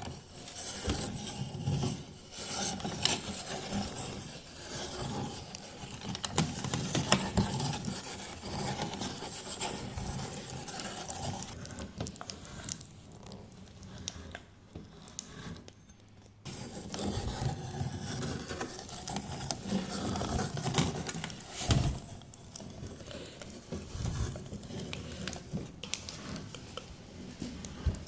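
Meat grinder crushing eyeball candy: an irregular run of scraping, grinding and crackling, with small clicks throughout. It eases off for a few seconds midway, then picks up again.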